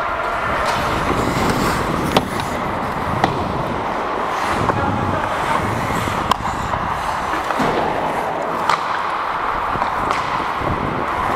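Ice hockey skates scraping and carving on the ice, with several sharp clacks of sticks and puck striking.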